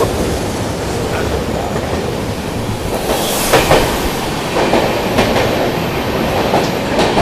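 Chennai Express passenger train running on the track: a steady rumble with wheels clacking over rail joints, a cluster of clacks about three to four seconds in and more near the end.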